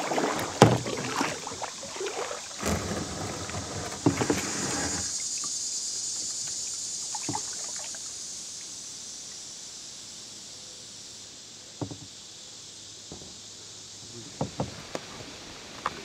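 Kayak on a shallow, clear river: knocks and water splashes around the boat in the first five seconds, then a steady light hiss of water flowing over gravel with a few scattered clicks.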